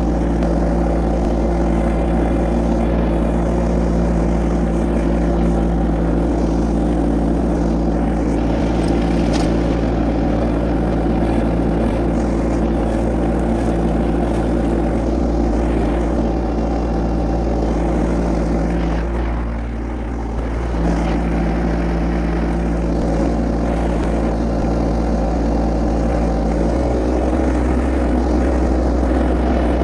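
Tractor engine running steadily, dipping briefly about twenty seconds in before picking back up.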